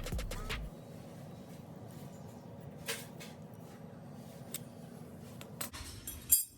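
Background music cuts out under a second in. After that come a few light clicks from the wrench and pedal as the pedal is unscrewed from the crank arm, and one sharp, loud click near the end.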